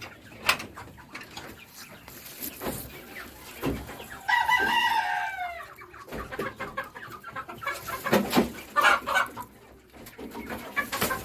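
Domestic fowl calling: one drawn-out call about four seconds in that falls in pitch at its end, with short clucking calls scattered around it.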